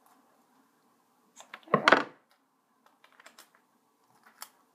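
Handling noise of craft materials on a table: one short, loud rustle a little under two seconds in, then a scatter of faint small clicks and taps as hands fiddle with an elastic band.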